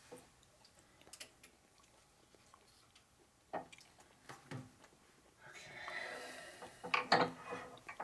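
Steel crankshaft flywheels being handled and seated in a press fixture: scattered light clicks and knocks, a scraping stretch from about halfway, and a few sharper metal clanks near the end.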